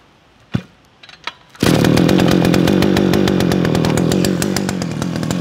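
Two light clicks, then about a second and a half in the ECHO YE46 brush cutter's two-stroke engine comes in loud and runs on with fast, even firing.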